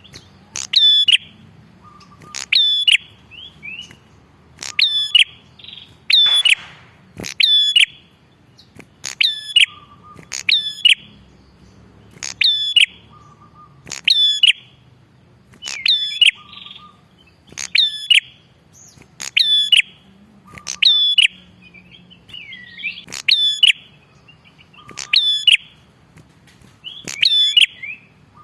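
Prenjak kepala merah singing a loud, sharp phrase of quick high looping notes, repeated about every two seconds.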